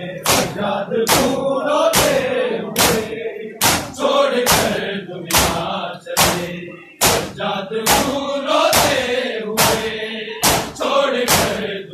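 Crowd of Shia mourners performing matam: hands slapping chests in unison at about two beats a second, over a massed chanted lament.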